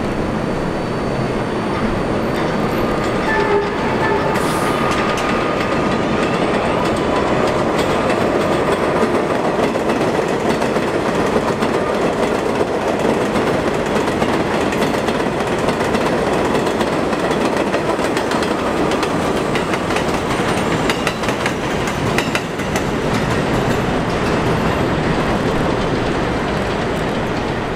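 Vintage New York City subway train of restored R17, R33 and R36 cars running past on an elevated line: a steady rumble of steel wheels on rail, with a run of clicking over the rail joints past the middle.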